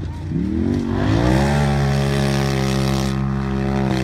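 Off-road race vehicle's engine revving up over the first second and a half, then holding steady at high revs.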